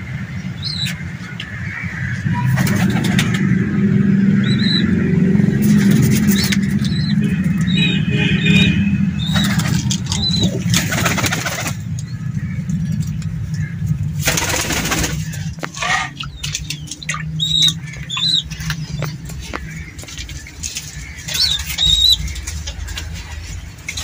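Pigeons' wings flapping in several short bursts, with brief high chirps from birds scattered between them, over a steady low rumble.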